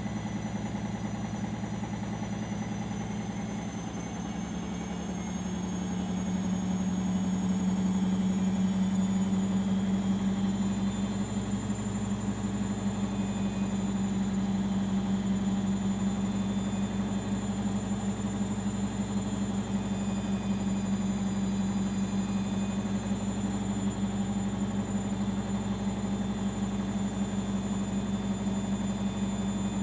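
Arçelik 5083 washing machine in its final spin at 800 rpm: a steady hum with a thin high motor whine. The hum grows louder and the whine rises slightly about five to eight seconds in as the spin picks up, then both hold steady.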